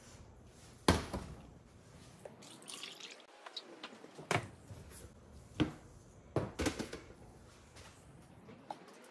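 Liquid cold-process soap batter, just past light trace, pouring and dripping from a stainless steel stockpot into a plastic pitcher, with several sharp knocks, the loudest about a second in.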